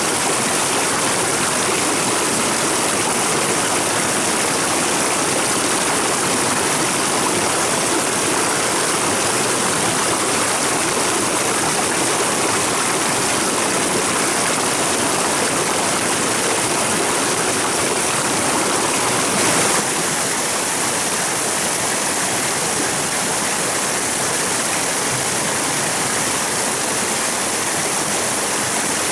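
Steady rush of flowing stream water, an even hiss with no clear splashes or knocks.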